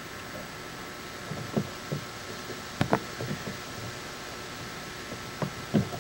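Steady hiss with a few scattered soft, low thumps and knocks. The sharpest pair comes about three seconds in, and two more come near the end.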